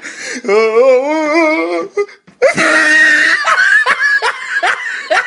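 Loud laughter in two stretches, with a short break about two seconds in.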